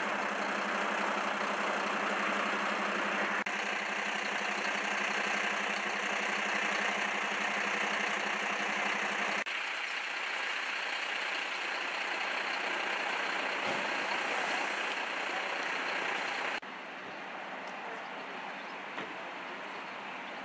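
Steady running noise of idling vehicle engines, with a low hum in the first half. The level and tone change abruptly about nine and a half seconds in and again a few seconds before the end.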